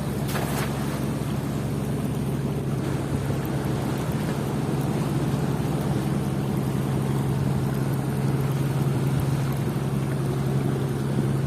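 Small engine running steadily at an even speed, over a rush of wind and water noise, with a brief sharp sound about half a second in.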